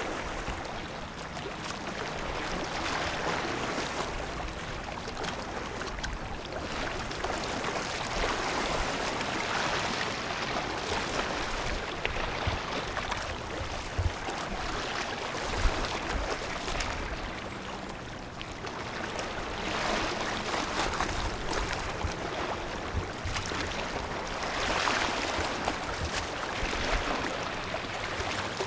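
A steady rushing noise that swells and eases every few seconds, with low rumbling and a few faint thumps underneath.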